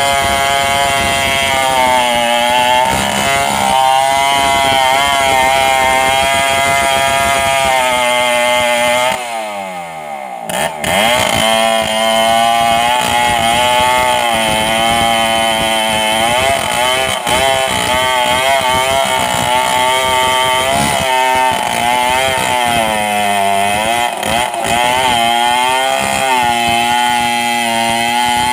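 Large two-stroke 070 chainsaw ripping a coconut log lengthwise under load, its engine pitch wavering as the bar cuts the soft wood. About nine seconds in the revs fall away briefly, then climb back to full cutting speed about a second later.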